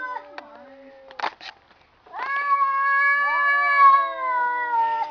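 Two domestic cats caterwauling at each other in a fight standoff: long, drawn-out yowls, one cat holding a steady pitch while the other's cry rises. The yowling breaks off near the two-second mark for a couple of short sharp noises and a brief pause, then resumes.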